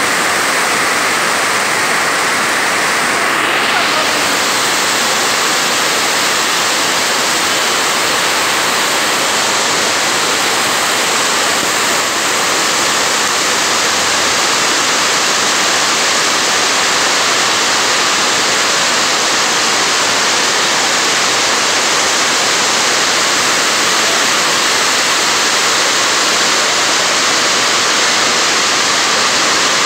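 Heavy downpour: a loud, steady rush of rain.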